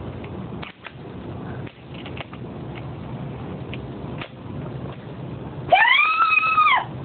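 Faint handling clicks over a steady low hum, then about six seconds in a loud, high-pitched vocal squeal lasting about a second, rising and then falling in pitch.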